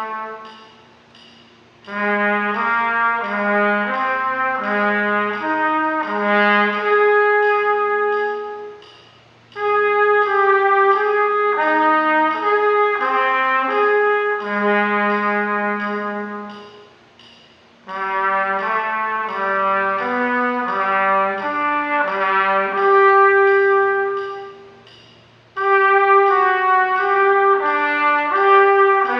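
Solo trumpet playing slurred arpeggios in the middle and low register, four phrases with short breathing pauses between them, each arpeggio in a new key. The notes are connected smoothly, without tonguing, as a slurred-interval exercise.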